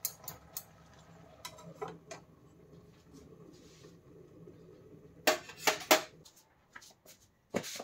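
Steel cooking pot and lid clinking and knocking as they are handled. Scattered light clinks come first, then a loud cluster of metal knocks about five to six seconds in and one more near the end.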